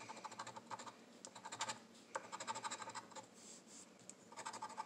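A metal coin scratching the coating off a lottery scratch-off ticket, in about four short bursts of rapid strokes with brief pauses between.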